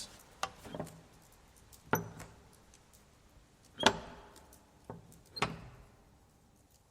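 Scattered sharp knocks and clunks in a small room, about six in all, each with a short ring. The loudest comes a little before the four-second mark.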